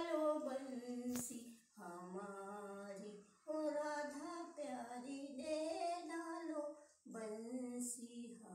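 An older woman singing a Hindi devotional bhajan solo without accompaniment, in phrases of long held, gently wavering notes separated by short breaths. There is a single sharp click about a second in.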